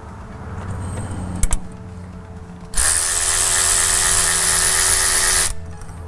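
A cordless ratchet runs for about three seconds as it turns out a brake caliper bolt, then stops. A couple of sharp metal clicks come about a second and a half in.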